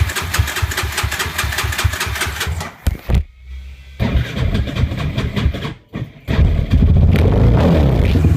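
Electric starter cranking a Suzuki LT-R450's 450 cc single-cylinder four-stroke engine with an even, fast chug, stopping, cranking again, then catching about six seconds in and running, with a short rev before settling. It is slow to start with the cooling fan running, which the owner puts down to a weakening battery.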